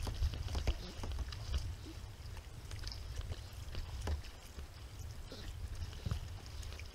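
Kayak paddling: the double-bladed paddle dipping into pond water with light splashes, drips and scattered small clicks and knocks, over a low, uneven rumble.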